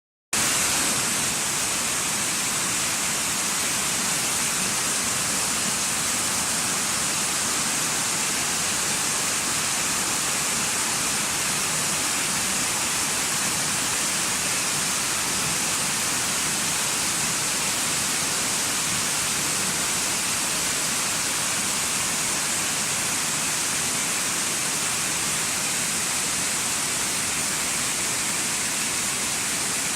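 Waterfall: falling water rushing with a steady, even hiss, brightest in the high range.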